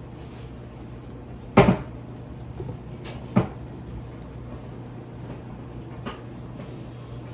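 Three sharp knocks of small hard objects being handled on a work surface, the first the loudest and a fainter one near the end, over a steady low hum.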